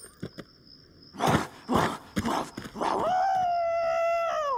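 Cartoon hug wolf giving three short rough breathy snarls, then one long howl that holds a steady pitch and drops away at the end.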